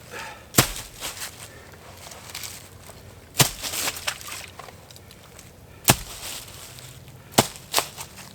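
Dry firewood sticks snapping: about five sharp cracks a second or more apart, the last two close together, with rustling and crunching in the leaf litter between them.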